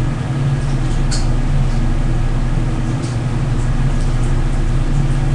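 Steady low hum with a buzzing tone, with a few faint ticks over it.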